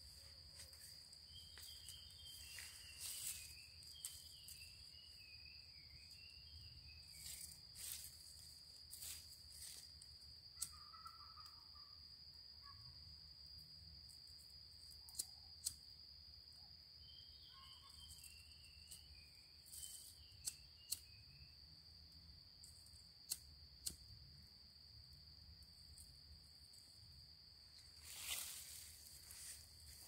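Faint, steady high insect trilling in one unbroken tone, with two short runs of higher chirping notes and scattered crackles of dry leaves and twigs being handled.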